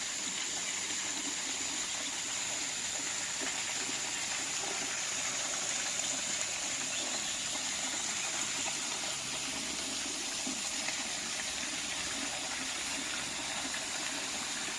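Waterfall: water rushing and splashing steadily, with a thin steady high-pitched tone over it.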